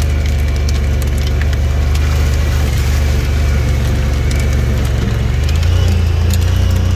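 Vehicle engine running steadily while driving a rough dirt track, with hail ticking irregularly on the windshield and cab.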